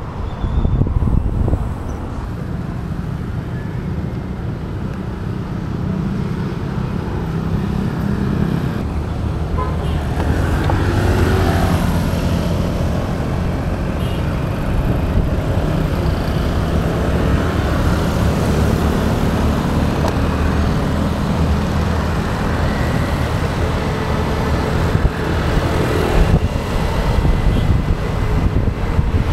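Steady city road traffic: cars and motorcycles running close by, heard from a moving bicycle, with the low rumble of air moving past the microphone.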